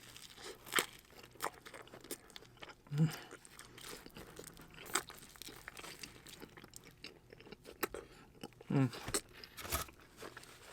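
Close-up chewing and crunching of Margherita pizza crust, a series of irregular crisp bites and mouth clicks, with a short hum about three seconds in and another near the end.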